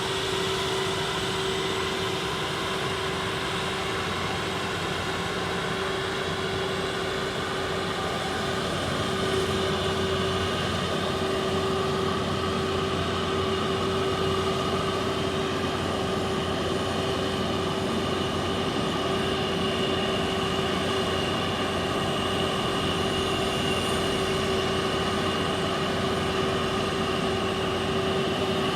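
Concrete-cutting saw running steadily while cutting asphalt: an even engine note with a steady whine over it, a little louder from about nine seconds in.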